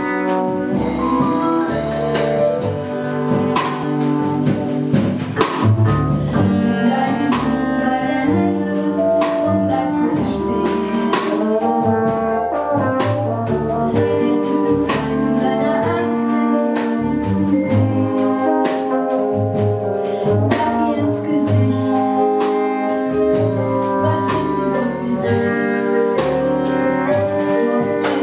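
Small live jazz ensemble playing: trombone and bass clarinet carry the melody over vibraphone, double bass and drums.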